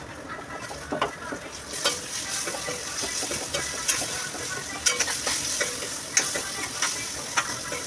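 Tomato slices frying and sizzling in oil and onion masala in a steel kadai, with a steel spoon scraping and clicking against the pan as they are stirred. The sizzle grows louder about two seconds in.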